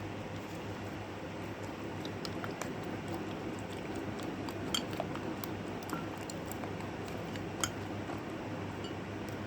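Slime being worked in a container over a steady background hum, with a few small, sparse clicks, as of a utensil or fingers tapping the container.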